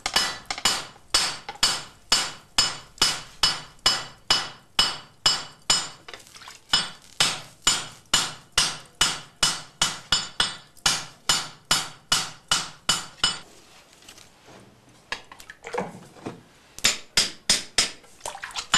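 Hand hammer striking a red-hot steel sword blade on an anvil: a steady run of sharp, ringing blows about three a second, forging the blade to shape (hizukuri). The blows stop for about two seconds two-thirds of the way through, then start again quicker near the end.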